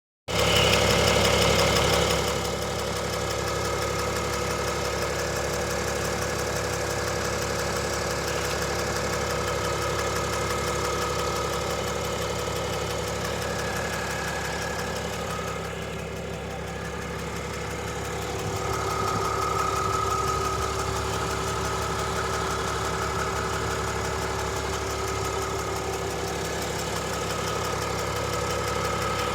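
2022 RAM's 6.7-litre Cummins inline-six turbo diesel idling cold, a little louder for the first couple of seconds, with a ticking heard only on cold start that goes away once the engine has warmed for about ten minutes.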